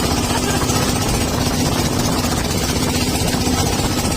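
An engine running steadily at an even speed, with a constant low drone.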